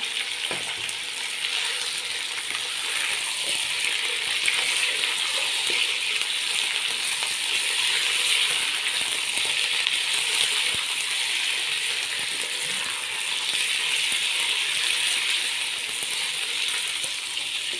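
Raw chicken wings sizzling steadily in hot oil in a nonstick kadai, just put in to fry, with a spatula stirring and scraping them against the pan.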